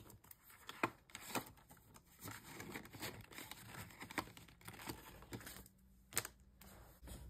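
Faint rustling of paper banknotes and crinkling of a clear PVC binder envelope as cash is tucked into it and the binder's envelopes are turned, with many small clicks and taps.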